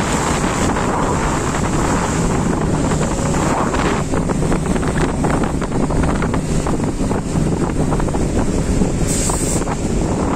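Wind buffeting the microphone over the steady hum of a small motorboat's engine under way.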